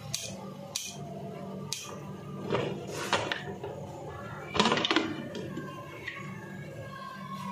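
Aluminium pressure cooker lid being turned by its handle and lifted off: a series of metal clicks and clanks, the loudest about four and a half seconds in.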